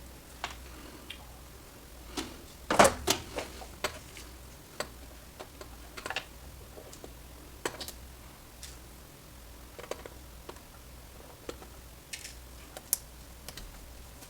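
Irregular light clicks and taps of small tools and components being handled at an electronics repair bench during resistor replacement. The loudest cluster comes about three seconds in.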